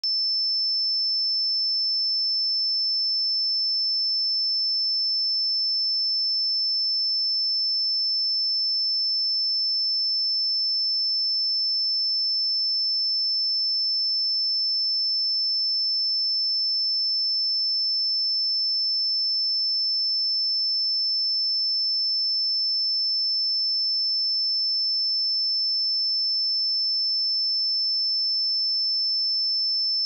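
A 5292 Hz sine-wave test tone: one pure, high-pitched tone held steady at a constant level, with nothing else.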